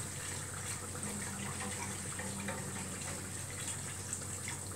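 A spoon stirring milky béchamel sauce in a metal pan on a gas burner: steady liquid swishing with faint scrapes against the pan, over a low hiss.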